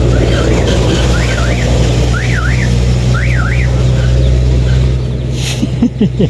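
A vehicle engine running with a steady drone, while an alarm-like tone sweeps up and down in short bursts about once a second, stopping after about three and a half seconds. A few short knocks and clicks come near the end.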